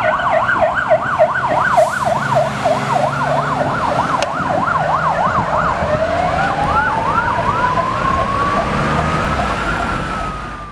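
Fire engine sirens on an emergency run: one siren sweeping quickly up and down, about three times a second, thinning out after about seven seconds, while a second siren rises in a slow wail from about six seconds in, peaks near the end and starts to fall. Truck engines and traffic rumble underneath, and the sound fades out at the very end.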